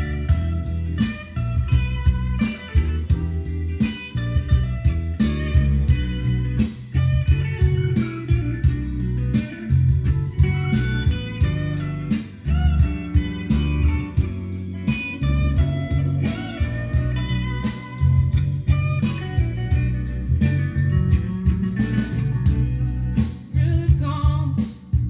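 Blues music with bending, sliding guitar lines over a heavy bass and steady beat, played back through a pair of Infinity RS-4/B floor-standing speakers and heard in the listening room.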